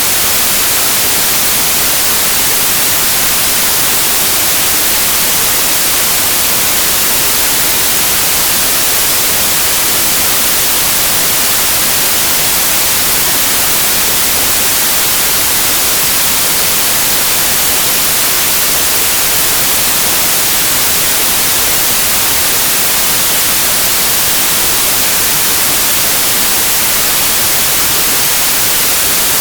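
Steady, loud white noise: an even hiss with no tones or breaks, strongest in the high pitches.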